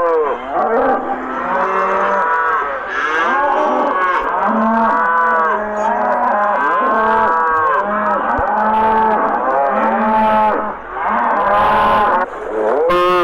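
Several cattle mooing at once, many calls overlapping with hardly a pause, each call rising and then falling in pitch.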